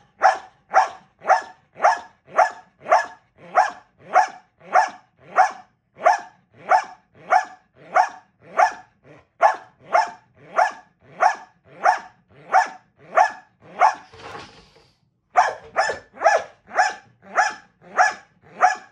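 Belgian Malinois barking in a fast, even rhythm, about two barks a second, as trained bark work on command from a box. Near the end the barking breaks off for about a second with a breathy sound, then picks up again.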